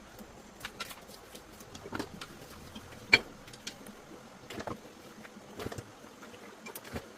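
Irregular sharp clicks and taps over a faint steady hiss, with one louder knock about three seconds in.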